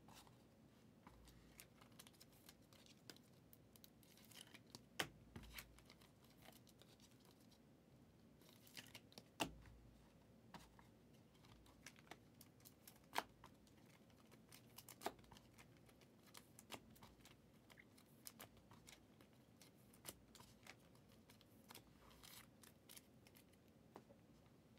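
Faint, scattered clicks and taps of trading cards being handled, set down and sorted on a tabletop, a few of them sharper than the rest.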